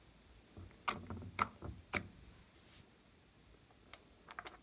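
A few sharp clicks and taps with a light thud to them: three about half a second apart in the first two seconds, then a quick run of small clicks near the end.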